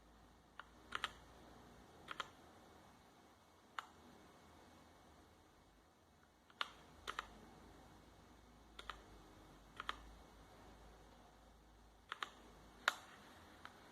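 Motospeed CK62 mechanical keyboard with clicky blue switches, its keys pressed one at a time at a slow, irregular pace. About a dozen sharp clicks sound, several in quick pairs, and the loudest comes near the end.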